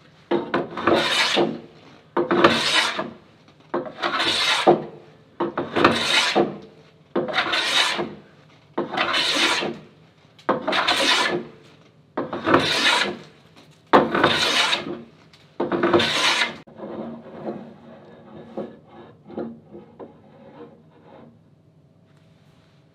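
Metal hand plane cutting along a glued-laminated wooden board: ten long, even push strokes, each a loud hissing rasp of about a second with short silent gaps between as the plane is lifted back, peeling long shavings. After about 16 seconds the strokes turn fainter and shorter for a few seconds.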